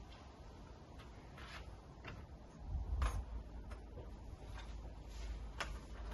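Handling noise as the cordless strimmer is held and moved: scattered light clicks and knocks of plastic, with a low thud about three seconds in. The strimmer's motor is not running.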